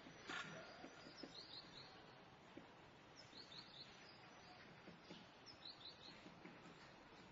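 Small birds chirping at a feeder over faint, steady town ambience: short high chirps in quick runs of three, coming about every two seconds. A single sharp click about half a second in is the loudest sound.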